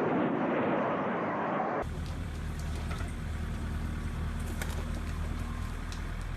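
A loud rushing noise that cuts off abruptly about two seconds in, followed by the steady low hum of a running engine with a few faint clicks.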